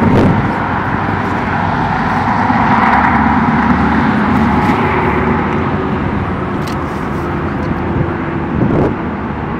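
Steady road traffic noise, swelling around three seconds in as a vehicle goes by.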